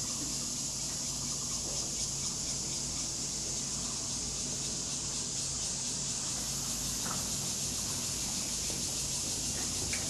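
Steady, high-pitched insect chorus with no break, over a faint low hum.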